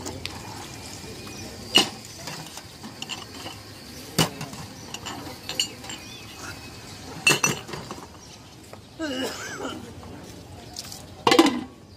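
Drinking glasses clinking against a steel tray and each other as they are rinsed and set down, a sharp clink every few seconds.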